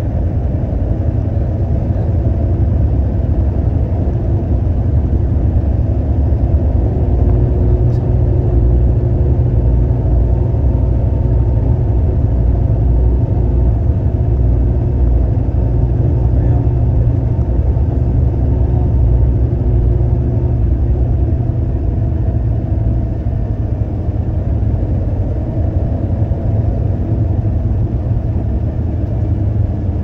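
Concrete mixer truck's diesel engine running steadily, a continuous low rumble.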